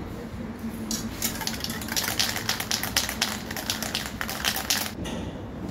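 Aerosol spray can being shaken, its mixing ball rattling fast inside, from about a second in until it stops near the end.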